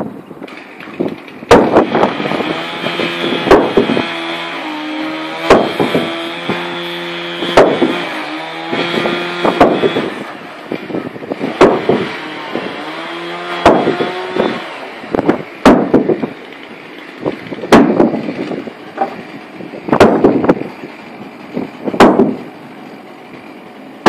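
Heavy mallet striking wooden deck planking about every two seconds, each blow a sharp knock, driving the closing plank of a ship's deck into place. A pitched drone hums in the background for the first fifteen seconds or so.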